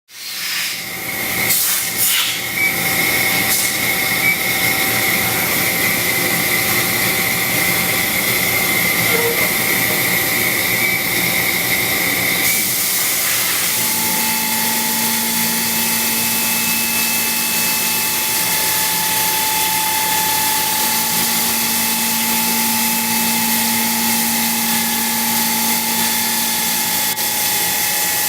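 5-axis CNC milling machine running: a steady hiss with the spindle's whine over it. About twelve and a half seconds in the sound shifts, a high whine giving way to lower steady tones, as the machine changes speed or tool path.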